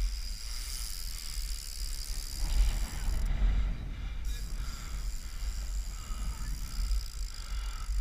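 Steady low wind rumble on a bike-mounted camera's microphone, with the trials bike's tyres rolling over block paving, a little louder about three seconds in.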